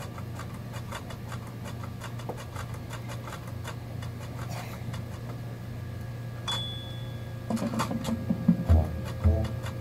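A steady low hum with fast, even ticking while the field waits, then a short high whistle about six and a half seconds in. About a second later the marching band and front ensemble start playing, with low brass and heavy drum hits near the end.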